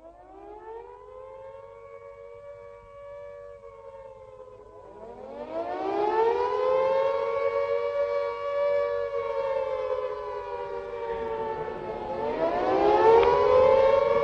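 Wartime-style air-raid siren wailing: two close tones that rise, hold, sag and climb again in slow sweeps, getting louder about five seconds in and again near the end.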